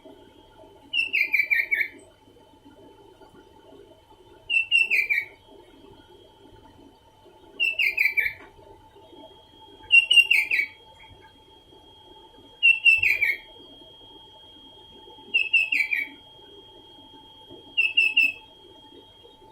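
Sooty-headed bulbul (kutilang) singing: a short phrase of several quick whistled notes stepping down in pitch, repeated seven times about every two and a half to three seconds, over a faint steady hum.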